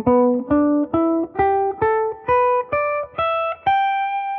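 Guitar playing the E minor (G major) pentatonic scale in the first shape at the 12th fret, single plucked notes climbing steadily about two a second. The top note is held and left ringing near the end.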